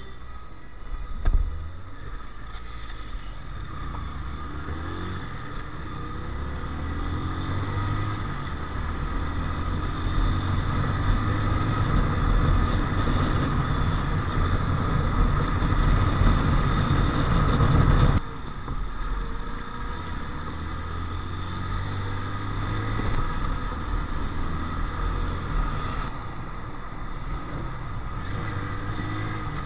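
Motorcycle engine running under way in traffic, with the rush of riding, its pitch wavering as the revs change; the level builds for the first half and then drops suddenly about two-thirds of the way in. A single sharp knock sounds about a second in.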